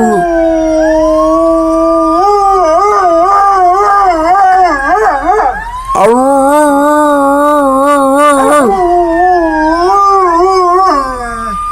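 Dogs howling in long, wavering notes, with two voices overlapping. The howl breaks off briefly near the middle and starts up again.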